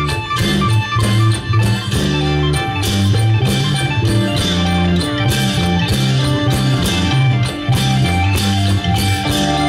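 Isan folk music played by a stage ensemble: a plucked-string melody over a moving bass line and a steady drum and cymbal beat.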